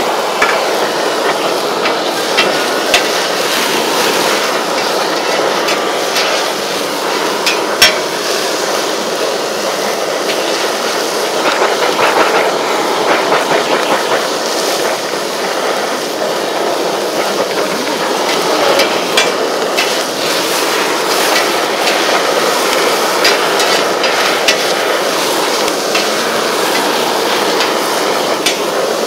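Steady hiss of food sizzling on a flat steel griddle under a blowtorch flame, with sharp metallic clanks of a spatula and tongs striking the griddle now and then, the loudest about eight seconds in.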